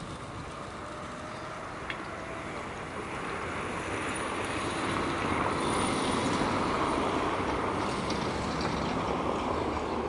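A vehicle passing by: a rushing noise that builds over several seconds, is loudest around the middle, then slowly fades.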